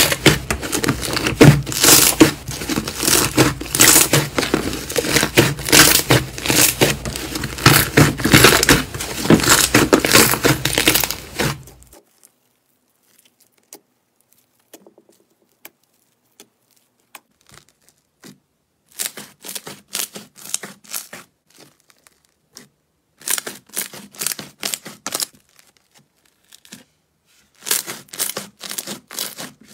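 Slime being pressed and kneaded by hand, with dense crackling and popping that stops suddenly about twelve seconds in. After a few seconds of near silence with faint clicks, a beaded, crunchy slime gives short bursts of crackling as it is squeezed, three times.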